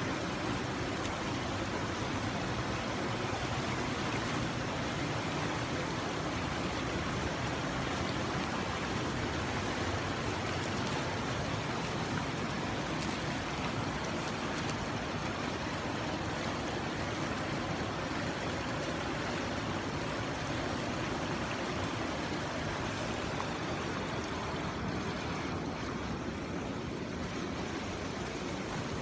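Shallow creek water rushing steadily over a rocky bed and around fallen logs, a continuous even rush that eases a little in the last few seconds.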